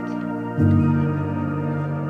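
Ambient background music of long held synth-like chords, moving to a new chord about half a second in.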